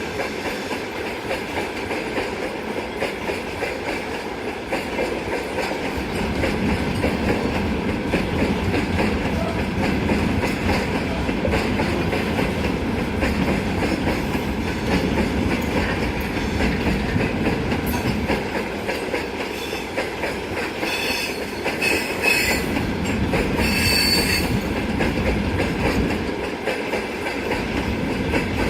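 Ammonia tank wagons of a freight train rolling past, wheels clattering over the rail joints with a steady rumble that grows a little louder about six seconds in. Brief high-pitched wheel squeals come near the end.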